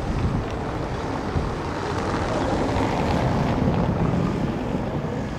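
Wind buffeting the microphone over the wash of harbour water, a steady low rumble that swells louder for a couple of seconds in the middle.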